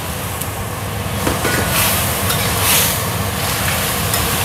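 Chopped tomatoes, chillies and aromatics sizzling and bubbling in oil and a little water in a wok, over a steady low hum, with a few light clicks.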